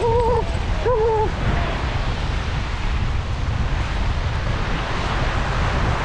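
Wind buffeting the microphone over the wash of surf on a beach, a steady low rumble. Two short wavering calls sound in the first second and a half.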